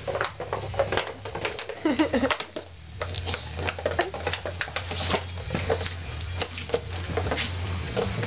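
A small dog playing and scrambling on the floor: a quick, irregular run of clicks, taps and scuffles, over a low hum.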